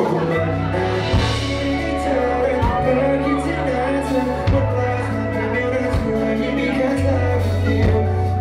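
Live band music with a singing voice over a steady bass line and regular drum hits.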